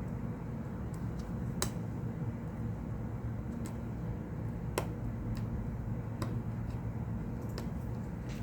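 Light, irregular clicks and ticks of a small prying tool working at the side of a smartphone to free the volume-button part, about half a dozen spread over several seconds, over a steady low hum.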